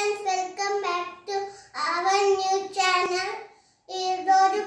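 A young boy's high voice, talking in a sing-song way in phrases with short pauses.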